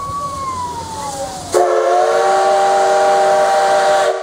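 Steam locomotive C11 207's whistle. A single tone glides downward, then about a second and a half in comes a loud, long blast of several notes sounding together, over a hiss of steam. The blast is held for about two and a half seconds and cuts off near the end.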